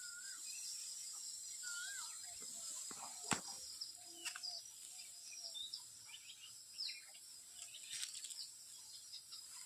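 Birds calling with short wavy whistles and chirps over a steady high-pitched insect drone, with one sharp click about three seconds in.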